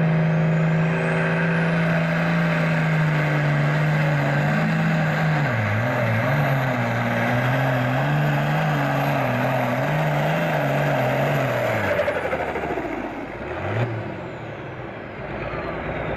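Super Farm pulling tractor's turbocharged diesel engine at full throttle under heavy load, with a high turbo whine climbing over the first couple of seconds and the engine note wavering as it lugs. About twelve seconds in the throttle comes off at the end of the pull, and the engine note and whine fall away.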